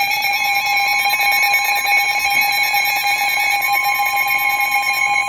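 Emergency Alert System attention signal: a loud, steady two-tone alarm, harsh with overtones, held without a break; the higher of the two tones grows stronger about three and a half seconds in.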